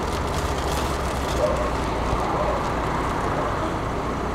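Wind buffeting the microphone, a steady low noise, with faint rustling of gift-wrapping paper as a present is unwrapped.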